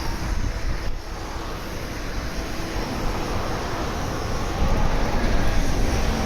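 Steady outdoor rumble of vehicle traffic, growing a little louder about four and a half seconds in.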